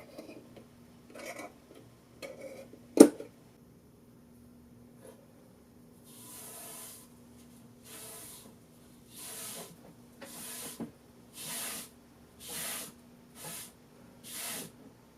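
A rag loaded with shellac wiped in repeated strokes over a wooden box, about eight swishing strokes in the second half. Before them come a few small clicks and one sharp knock about three seconds in.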